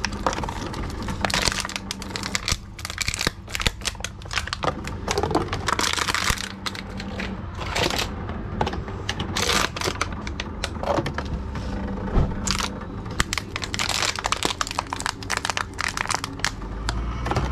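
Plastic drink bottles and cans handled and fed one after another into a TOMRA reverse vending machine: many quick crinkles of thin plastic, clicks and knocks, over a steady low hum.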